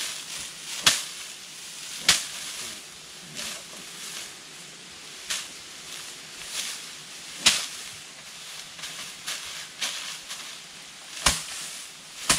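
Straw being handled, with crisp rustles and sharp crackles every second or two over a steady hiss.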